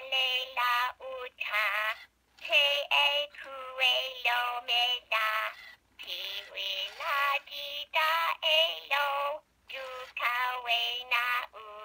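An Emoto-Tronic Furby toy singing a song in its high, electronic voice, in answer to a spoken command to sing. Short sung phrases with wavering pitch, broken by a few brief pauses.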